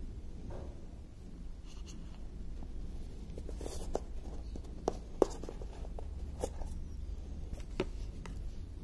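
Handling noise from a plastic-wrapped earbud charging case being lifted out of its cardboard box and turned in the hand: scratchy rubbing with scattered light clicks, over a low steady hum.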